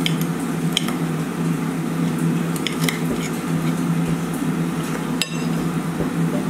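Metal knife and fork clinking and scraping on a ceramic plate while cutting a pancake: a few light clicks, with a sharper click about five seconds in, over a steady low hum.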